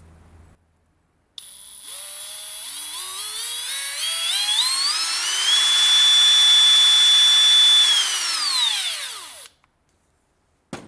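Hercules HCB92B brushless 20V cordless hammer drill running free in its high-speed (speed 2) gear. The motor whine rises steadily in pitch as it spins up, holds at full speed for a couple of seconds, then winds down and stops.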